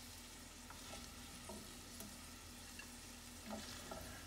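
Faint sizzle of browned chicken pieces in a hot nonstick skillet, with a few light taps and scrapes of a spatula as the pieces are lifted out onto a plate.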